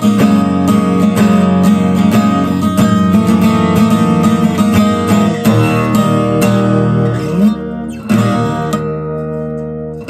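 Martinez W-91C/SB steel-string acoustic guitar strummed in a steady rhythm of chords. After a brief upward slide in pitch, a last chord is struck about eight seconds in and left ringing as it slowly fades.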